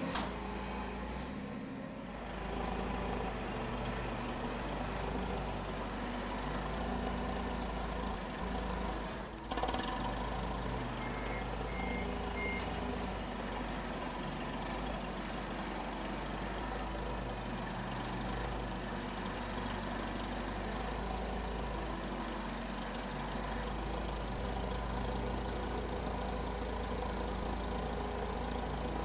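Background music of held tones that change every second or two over a steady low bass.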